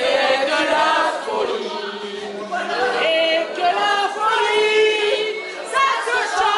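A small group of people singing together, several voices at once with held notes.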